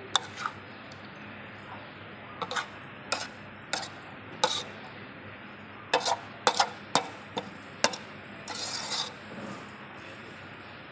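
Metal spatula scraping and clinking against a metal wok as a stir-fry of pork skin is tossed and stirred: irregular sharp taps and short scrapes, with one longer scrape near the end.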